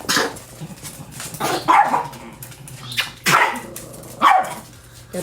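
A dog barking, four barks spaced a second or so apart.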